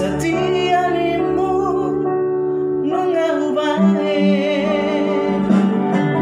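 A man singing a slow song with held, wavering notes over a backing track of sustained chords.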